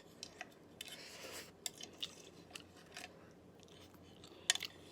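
Quiet eating sounds of a sashimi meal: scattered small clicks of utensils and mouth, with a short rush of breath-like noise about a second in and a quick cluster of louder clicks near the end.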